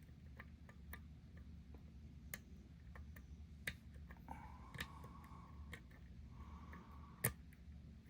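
Small, irregular metal clicks and ticks of a dimple pick and tension tool working the pins of an Abus 751B/30 dimple padlock, with one louder click near the end.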